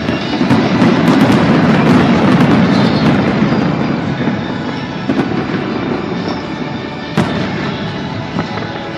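A fireworks volley: a dense rush of bursts and sharp crackles swells at the start, is loudest over the first few seconds, then slowly dies down, with one more sharp crack about seven seconds in. Music plays underneath.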